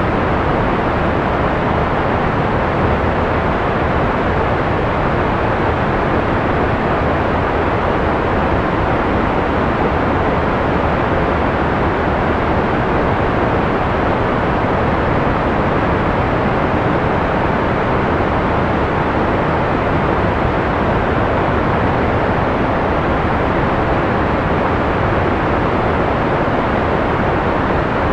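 Steady analog-style white noise: an even, unbroken hiss, muffled rather than bright, that never changes in level.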